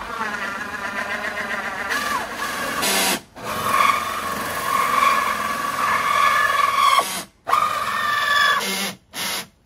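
Power drill cutting a hole through the plastic wall of an IBC tote tank for a pipe seal. It runs at a steady whine in stretches, stopping briefly and restarting three times.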